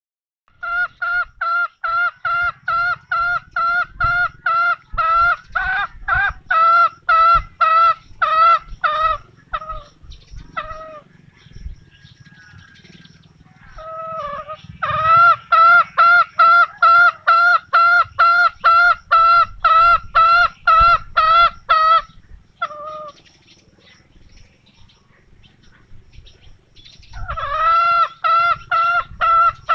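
Green junglefowl calling in fast, evenly repeated notes, about three a second, in three long bouts separated by short pauses.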